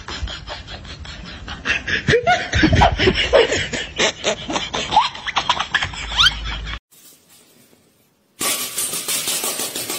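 A person laughing in quick bursts over two cats scuffling, with many short clicks. The sound cuts off suddenly about seven seconds in, and a steady hiss of background noise starts about a second and a half later.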